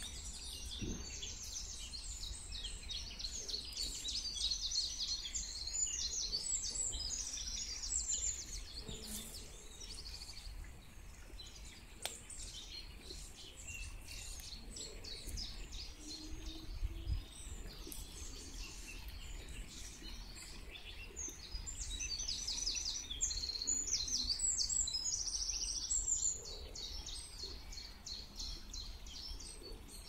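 Songbirds singing in rapid trills and chirps, busiest in the first ten seconds and again about three quarters of the way through, over the steady low rush of a river.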